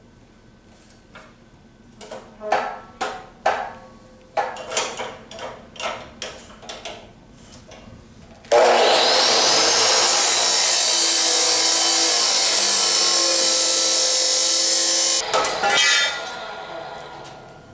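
A metal chop saw cutting steel tubing: first a series of knocks and clanks as the steel is set and clamped in the saw, then about halfway in the saw starts with a rising whine and cuts steadily for about six seconds before it is switched off, spinning down after a couple of knocks.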